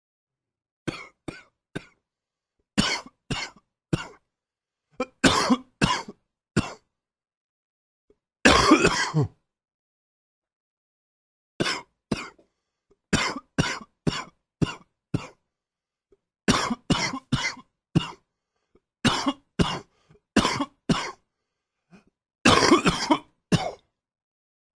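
A man coughing in repeated fits: clusters of two to five short, sharp coughs with pauses between, and two longer, rougher coughing bursts, one about eight seconds in and one near the end. It is a morning cough from a lingering slight cold.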